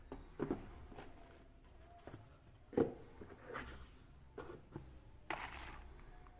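Handling noises as a sunglasses case is lifted out of a cardboard box and opened: scattered light knocks and taps, the loudest about three seconds in, and a brief rustle near the end.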